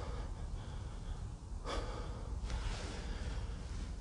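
A man breathing close to the microphone, with one long breath out about two seconds in, over a steady low rumble.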